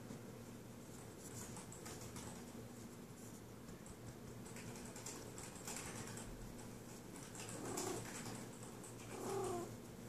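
Fingers scratching through a female cat's fur, a soft, repeated rasping. Near the end the cat, in heat, gives two short calls.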